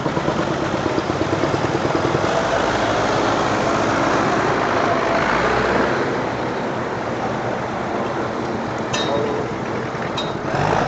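Engines of vintage farm tractors running as they drive slowly past, a steady rapid chugging that is loudest in the first half and eases somewhat after about six seconds.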